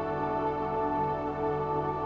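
Slow ambient new-age music: sustained, overlapping synthesizer-like tones held as a steady drone.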